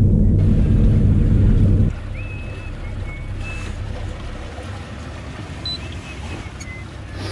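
Low wind rumble on the microphone aboard a small fishing boat. It is heavy at first and drops sharply about two seconds in to a quieter steady rumble, with a few faint high chirps above it.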